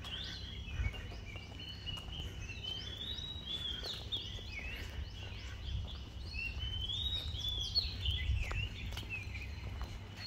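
Birds chirping, a run of short high notes that slide up and down in pitch, over a steady low rumble.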